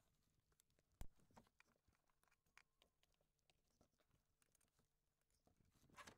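Near silence with faint scattered clicks and taps as rubber hoses and their clips are handled and refitted in the engine bay. One sharper click comes about a second in, and a few more cluster near the end.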